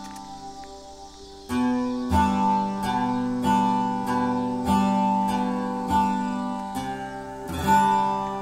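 Background music: acoustic guitar strumming chords. A chord rings out and fades at first, then from about a second and a half in a new strum comes roughly every second, each ringing on.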